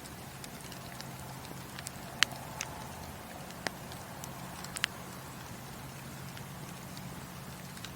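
Wood fire burning in a fireplace: a steady low rumble with scattered sharp crackles and pops of the burning wood, the loudest about two seconds in and several more over the next three seconds.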